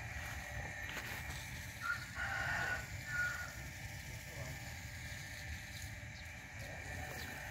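A rooster crowing once, about two seconds in, lasting about a second and a half, over a steady low rumble.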